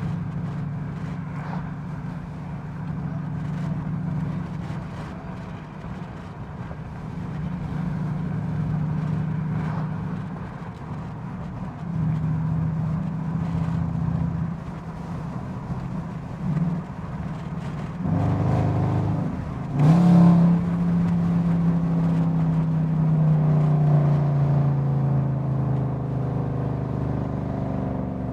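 Car engine and exhaust heard while driving: a steady low drone with small rises and dips, a sharp rev-up about 18 to 20 seconds in, then a long steady pull whose pitch slowly falls.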